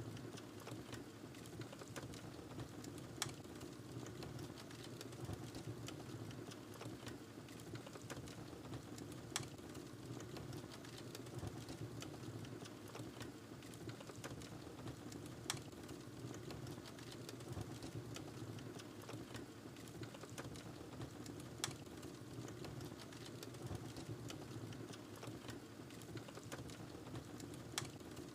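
Wood fire burning in a fireplace: a steady low rumble with continual small crackles and a sharper pop about every six seconds.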